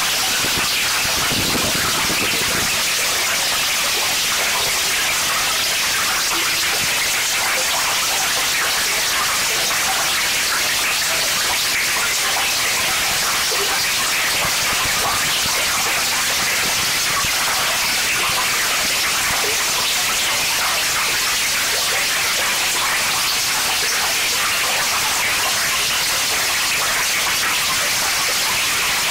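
Loud harsh noise music: a dense, unchanging wall of static-like hiss, heaviest in the upper-middle and high range, with no rhythm or pitch.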